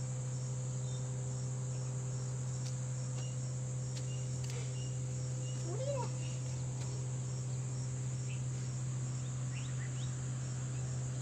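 Outdoor ambience: a steady high-pitched insect chirring, with evenly repeating pulses, over a low steady hum, broken by a few faint light clicks.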